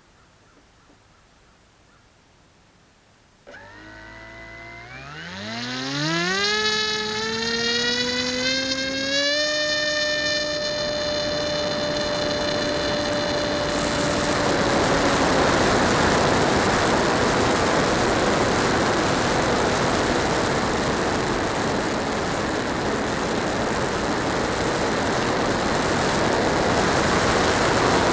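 HK Skipper electric RC flying boat's motor and propeller spinning up about three and a half seconds in, its whine rising in pitch for several seconds and then holding steady. From about halfway a loud rushing of water and wind over the onboard microphone covers the whine as the plane runs across the lake and lifts off.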